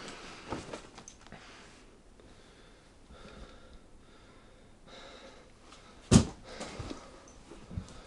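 Rustling and handling noises of a person moving about a small room, with soft clicks and one heavy thump about six seconds in.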